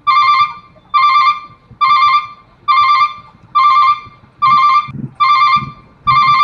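Railway level-crossing warning bell starting up and ringing a loud, repeating electronic ding, a little more than once a second. This is the signal that a train is approaching and the crossing barrier is coming down.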